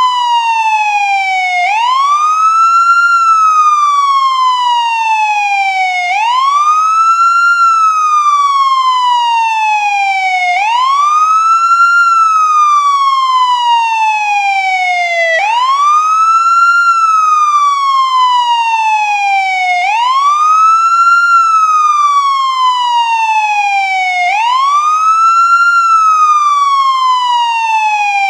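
American ambulance siren sounding its wail: a single tone that sweeps up quickly, then falls slowly, repeating about every four and a half seconds, six times over.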